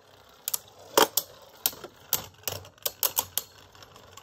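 Two spinning Beyblade tops clashing in a plastic stadium. Sharp, irregular plastic clicks, about a dozen, as they knock against each other and the stadium walls, the loudest about a second in.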